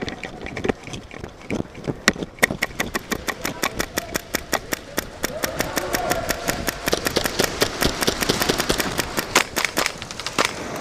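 Airsoft guns firing rapid strings of sharp shots, about eight to ten a second, starting about two seconds in and stopping shortly before the end.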